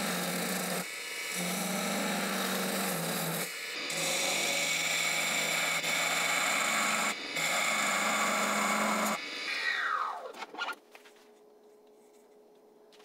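Wood lathe running while a bowl gouge cuts the inside of a narrow wooden goblet bowl: a continuous rasping cut over the motor's steady hum. About nine seconds in the cutting stops and the lathe runs down with a falling whine.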